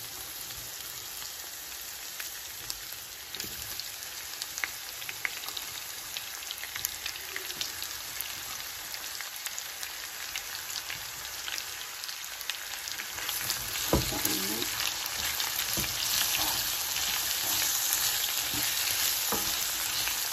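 Sliced onions sizzling in hot oil with whole spices, a steady crackling hiss dotted with small pops. They are stirred with a wooden spatula, with scrapes and light knocks on the pan, and the sizzle grows louder about two-thirds of the way through.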